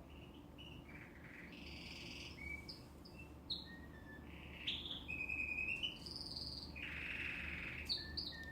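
Domestic canary singing: a varied run of high whistled notes, quick chirps and buzzy trills, with a few sharp louder notes.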